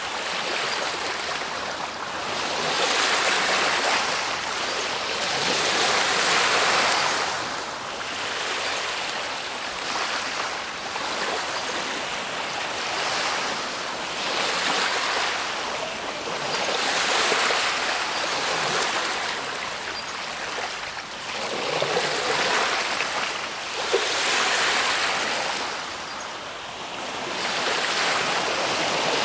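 Waves washing in and drawing back: a rush of water that swells and eases every two to four seconds.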